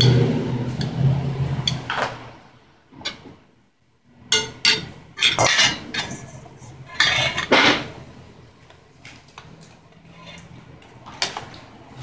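Metal serving utensils clinking and scraping against glass platters, a stainless steel bowl and plastic plates as food is served: a scattering of sharp knocks and clinks, most of them between about four and eight seconds in. A low hum fades away over the first two seconds.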